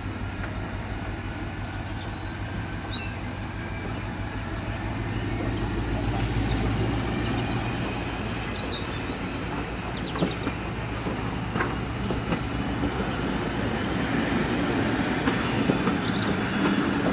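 Diesel locomotive engine working as it pulls a train of coaches away, growing louder over the stretch. A few sharp clicks come from the train's running gear about ten to twelve seconds in.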